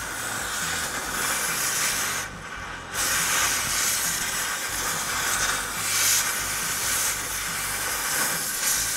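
Oxy-acetylene cutting torch blasting its cutting oxygen through a rusted steel bumper bracket, with a loud steady hiss. The hiss drops for under a second a little over two seconds in, then resumes.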